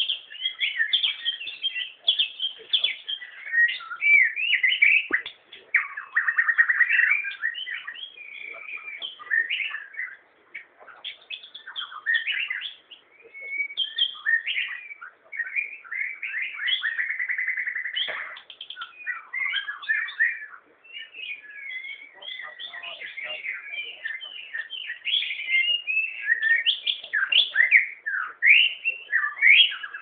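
A shama singing a long, varied song of quick whistled phrases, chirps and sliding notes, with only brief pauses.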